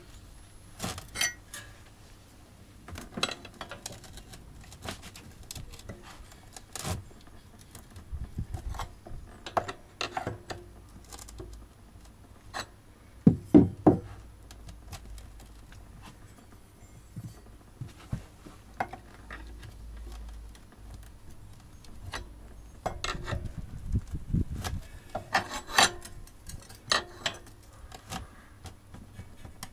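Metal pry bar and gasket scraper scraping and knocking at the joint between a pressure washer pump and its engine, levering and wiggling the pump to free it from the crankshaft, where it is stuck tight. Irregular scrapes and clicks, with two sharp knocks about halfway through.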